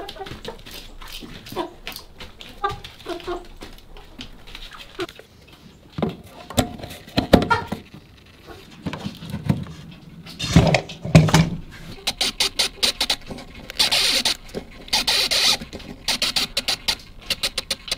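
Mechanical plug-in outlet timer being handled and set by hand: a few knocks and thumps as it is plugged in, then a fast run of small plastic clicks as its dial is set.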